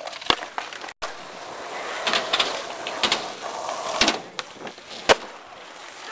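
Skateboard wheels rolling on concrete, with several sharp clacks of the board popping and landing. The loudest clack comes about five seconds in.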